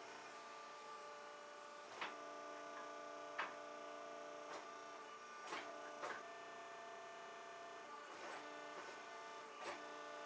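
Hydraulic forging press running with a steady hum from its pump, broken by several sharp metallic clanks as the ram upsets hot steel in a die and the piece is shifted with tongs.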